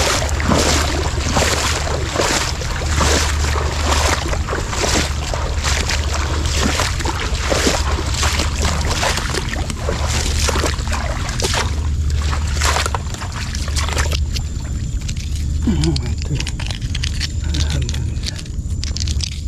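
Water splashing and sloshing in a quick run of strokes, about two a second, which dies down about 14 seconds in.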